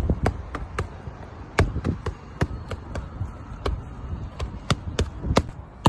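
Boxing gloves punching focus mitts: an uneven run of sharp smacks, a dozen or more, some coming in quick combinations.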